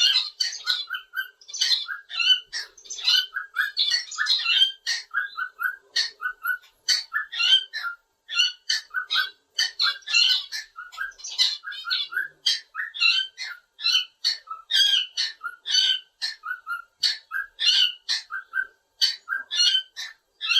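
Cockatiel chirping and whistling in a fast, continuous string of short high notes, several a second.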